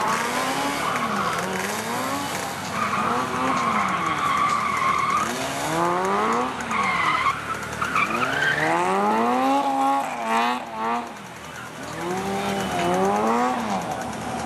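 Lotus Elise drifting: its engine revs rise and fall over and over as the throttle is worked, while the rear tyres slide and squeal in long held notes a few seconds in.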